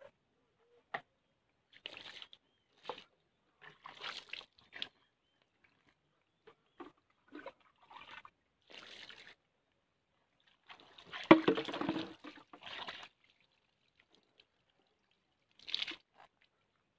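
Water being poured over someone bathing, splashing in short irregular bursts, with one longer, louder splash a little past the middle.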